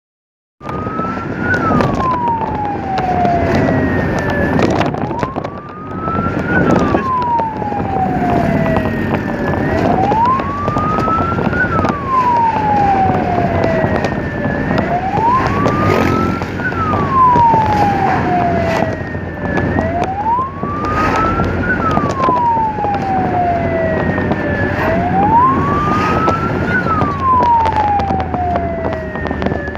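Ambulance siren wailing: the pitch rises quickly and falls slowly, repeating about every five seconds, over road and engine noise. It cuts in suddenly about half a second in.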